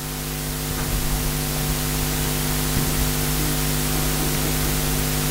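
Steady hiss with a constant low hum of several held tones: room tone and recording noise, with no distinct event.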